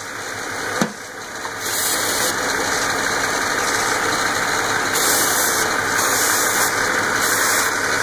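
1995 Ford Mustang's 3.8-litre V6 idling while brake parts cleaner is sprayed at the PCV valve hose in several short hissing bursts. The engine is at a lowered idle because the cleaner is drawn in through a vacuum leak at the PCV hose.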